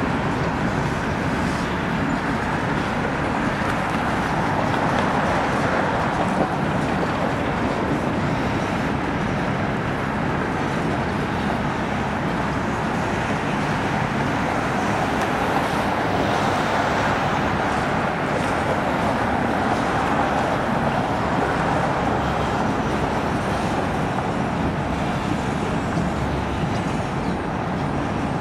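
A long freight train of CSX coal hopper cars rolling past, a steady rumble of steel wheels on the rails with no clear changes.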